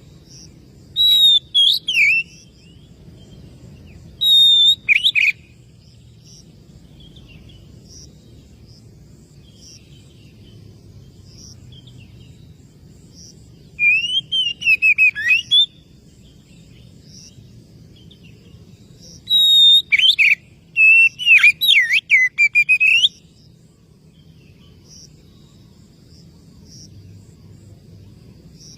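Oriental magpie-robin (kacer) singing loud whistled phrases with sliding pitch, in four short bouts spaced several seconds apart. It is the song a kacer uses to challenge rival males. A faint tick repeats about once a second between the bouts.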